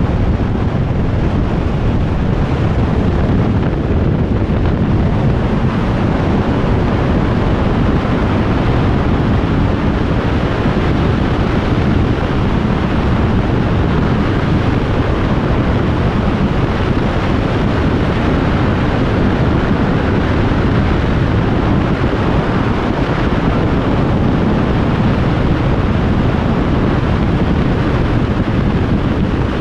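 Steady, loud wind rush over the microphone of a Kawasaki Z1000SX ridden at motorway speed, with the motorcycle's running and road noise underneath.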